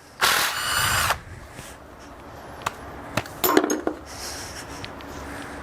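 A power drill runs for about a second, spinning a rocker arm nut off a small-block Chevy 350 head. A few short metallic clicks follow as the loose parts are handled.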